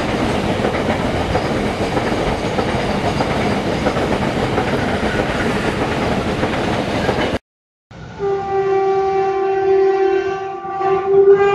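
Freight train of container wagons rushing past at speed in heavy rain, a steady roar of wheels on rail. After a brief cut about seven seconds in, an electric locomotive's horn sounds in a long held blast, dips briefly, then comes back louder near the end.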